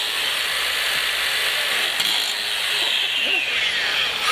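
Makita cordless angle grinder grinding with its disc forced hard into the work. The motor whine sinks in pitch over the second half as it bogs down under the load, then climbs back near the end.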